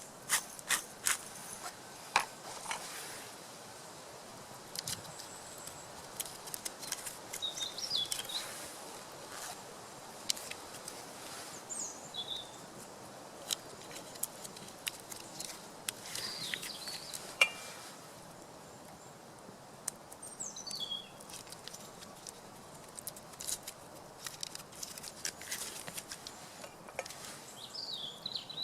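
Campfire crackling, with sharp irregular pops and snaps, one much louder about 17 seconds in, and a few short bird chirps now and then.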